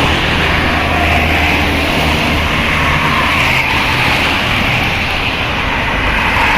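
A large bus's engine running steadily with a low hum, over continuous road and traffic noise; no horn sounds.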